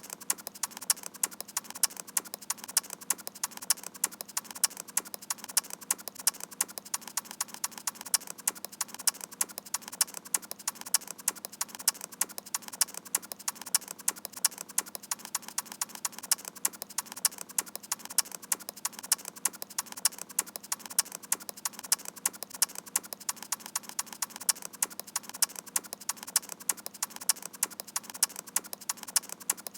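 Door-slam samples chopped and looped into a fast percussive beat: sharp clicks and knocks repeating evenly, with louder hits a few times a second.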